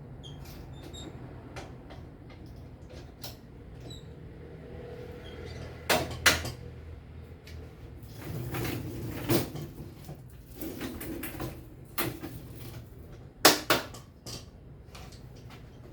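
Several sharp knocks and clatters of objects being handled, with stretches of rubbing or scraping in between over a low steady hum.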